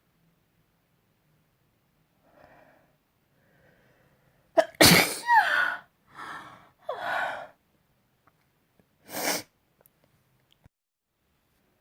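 A person sneezing in a fit: faint catching breaths as it builds, then a loud sneeze with a falling cry about halfway through, followed closely by two smaller ones, and one last short sneeze a couple of seconds later.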